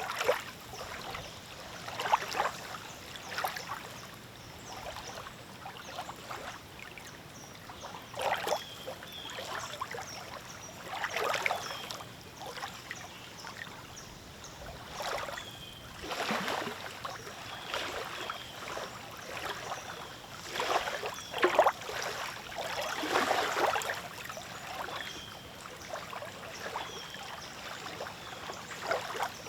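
Small wind-driven waves lapping and splashing against the shore in irregular slaps every second or two. A faint high chirp repeats in the background.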